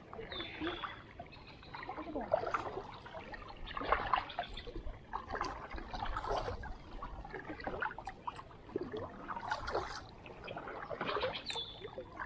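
Kayak paddle blades dipping into calm river water, with water trickling off them, a stroke about every second and a half.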